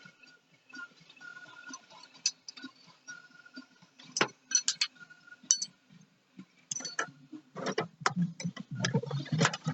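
Hand tools working on metal parts: irregular sharp clicks and clinks, some ringing briefly. About three-quarters of the way through they turn into a dense, fast rattling.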